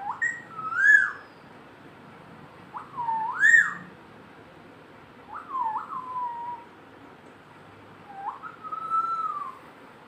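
An Alexandrine parakeet whistling four separate phrases a couple of seconds apart. Each one glides up and down in pitch, and the first two are the loudest.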